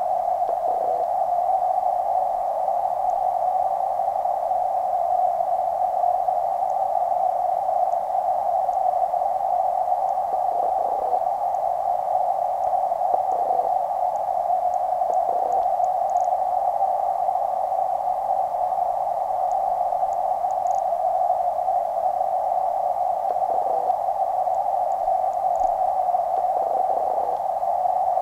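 Steady, muffled rushing hiss of creek water picked up by a camera sitting underwater, even and unchanging.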